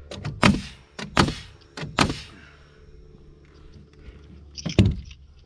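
Pneumatic framing nailer driving nails into wooden wall studs: three shots about three-quarters of a second apart, then a fourth near the end, each a sharp bang with a brief hiss after it.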